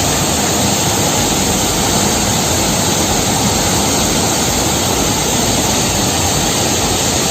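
Waterfall close by: a loud, steady rush of falling water, even and unbroken.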